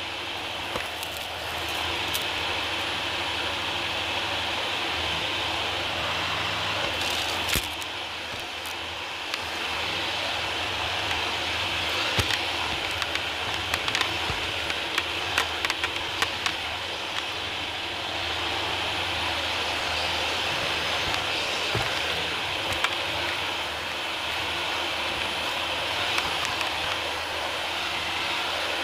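Dyson DC40 ball upright vacuum cleaner running over a wood floor: a steady motor whine with scattered sharp clicks and crackles, thickest about halfway through, as grit and debris are sucked up.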